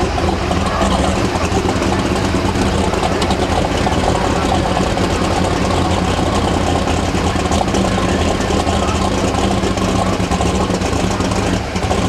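Engine of a John Deere heavy super stock pulling tractor running steadily, loud and deep, with a brief dip in level near the end.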